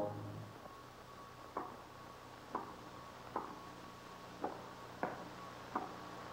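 Tennis ball being hit in a rally: six short, hollow pocks of racquet strikes and bounces, about one a second, starting a second and a half in, over the steady low hum of an old film soundtrack.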